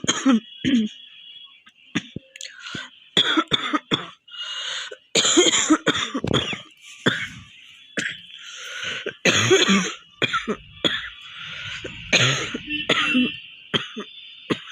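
A woman coughing over and over in irregular bouts of short coughs with brief pauses, with longer fits about five and nine seconds in. It is a genuine cough from a cold.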